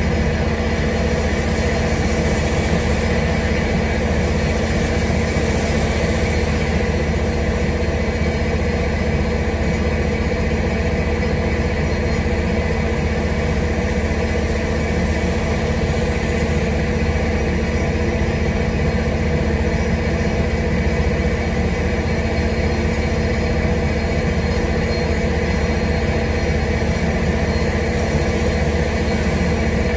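A constant low mechanical hum over a steady rush of noise, unchanging throughout.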